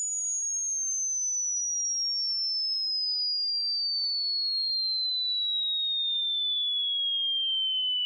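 A single pure sine test tone sweeping slowly and steadily downward in pitch, from very high to high.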